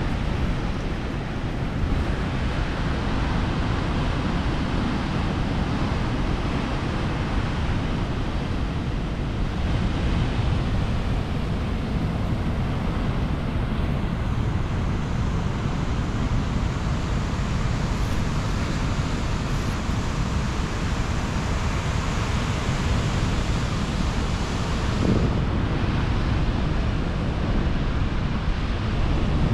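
Atlantic surf breaking on a sandy beach, a steady wash of waves, with wind buffeting the microphone.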